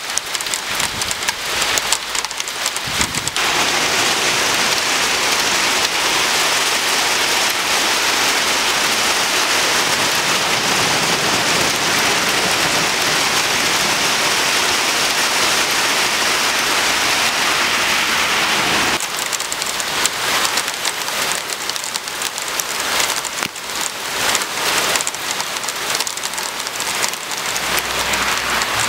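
Hailstones and rain pelting a window ledge and glass pane, a dense rattle of separate hard impacts. About three seconds in it changes to a steady, even hiss of hail and heavy rain on a street, and after about nineteen seconds the rattle of impacts on the ledge returns.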